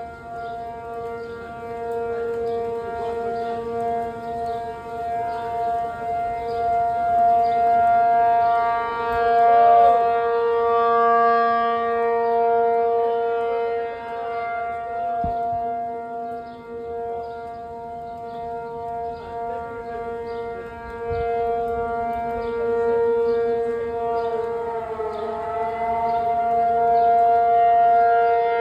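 P-50 outdoor warning siren sounding its steady alert tone, a held chord of several pitches whose loudness slowly swells and fades.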